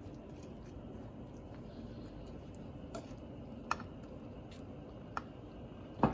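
A spoon stirring chana masala curry in a pot, with a few light clicks of the spoon against the pot over a low steady background noise, and a sharper click near the end.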